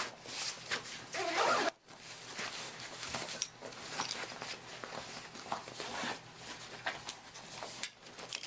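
A zipper on a carry bag being pulled, with the rustle and clatter of gear being handled inside the bag.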